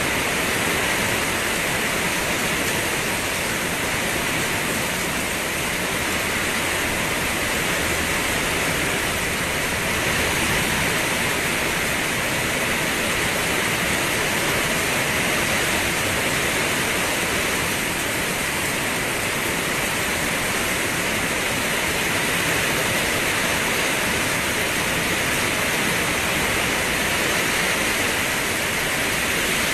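Steady rain falling, a dense even hiss with no separate drops or thunder standing out.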